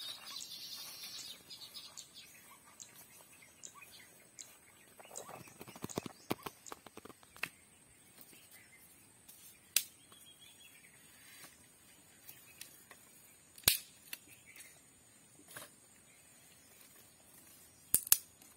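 Dry sticks and coconuts knocking on the ground: a cluster of duller knocks about five to seven seconds in, then single sharp snaps several seconds apart, the loudest a close pair near the end. Faint chirping at the start.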